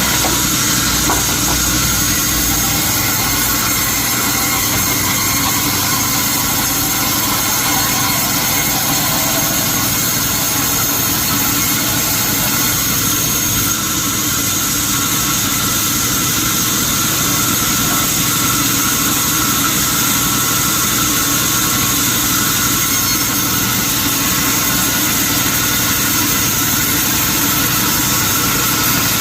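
Sawmill machinery running steadily, a loud, continuous machine hum with several steady high-pitched tones and no change in load.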